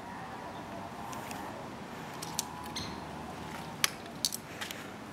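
A few light, scattered clicks of a hand working the motorcycle's controls, over a faint steady hiss; the engine is off.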